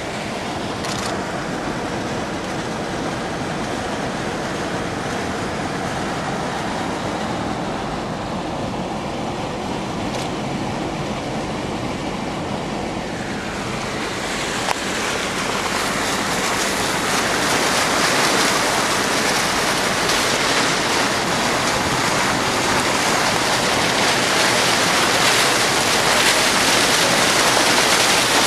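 A vehicle pushing through floodwater: a steady rush of churning, splashing water that grows louder about halfway through.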